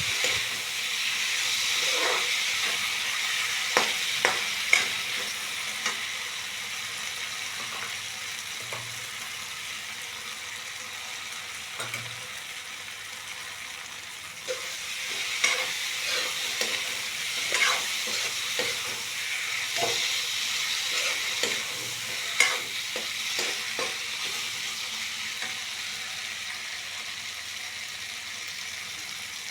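Food frying in hot oil in a pan with a steady sizzle, stirred with a spatula that clicks and scrapes against the pan now and then. The sizzle is louder at first, eases off, and picks up again about halfway through.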